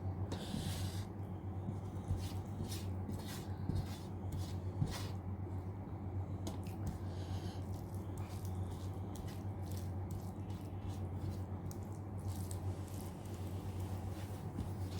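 A person eating mutton curry and rice close to the microphone: chewing, with frequent short wet clicks and smacks, over a steady low hum.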